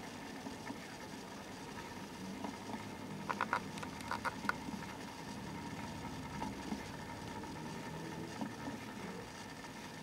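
Small electric motor of a rotating display stand humming steadily as it turns. A quick run of light clicks comes about three to four and a half seconds in.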